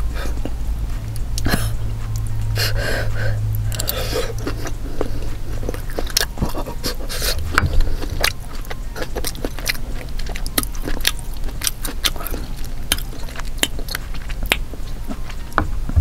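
Close-up chewing and wet mouth clicks of someone eating a hot steamed soup dumpling, with a few breathy huffs in the first four seconds against the heat of the food.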